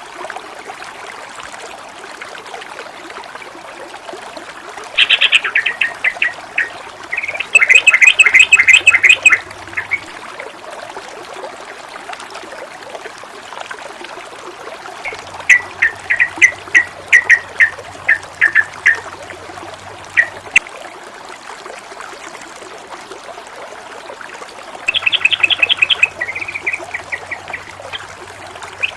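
Running water trickling and splashing steadily, with a small bird breaking in several times with quick runs of rapidly repeated chirps. The loudest run comes about eight seconds in.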